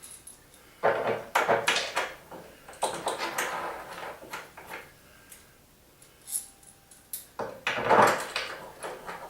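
Wooden table parts and their hardware being handled and fitted together: irregular knocks, clunks and rattles in a few clusters, the loudest near the end.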